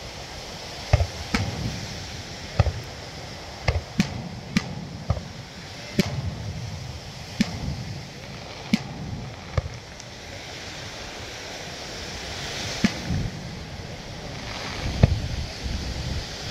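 Aerial fireworks shells bursting: about a dozen sharp bangs at irregular intervals, with a lull about two-thirds of the way through, over a steady background rush.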